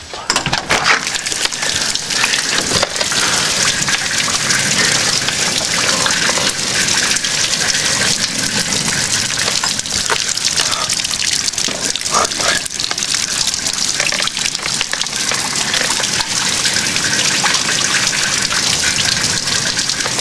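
Heavy rain pouring down steadily, a dense hiss of drops with some gushing runoff, coming in abruptly at full level at the start.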